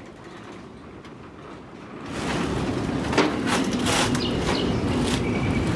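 Plastic wrapping crinkling and rustling as it is handled, starting about two seconds in after a quiet opening.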